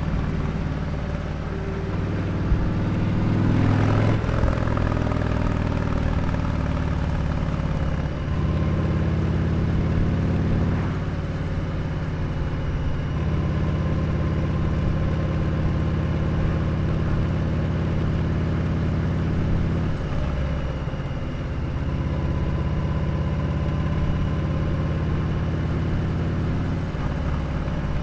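2020 Harley-Davidson Sport Glide's Milwaukee-Eight 107 V-twin running through a Dr. Jekill & Mr. Hyde aftermarket exhaust while under way. The engine note rises under throttle about three seconds in. It then settles into a steady cruise that changes note a few times as the throttle is eased and opened.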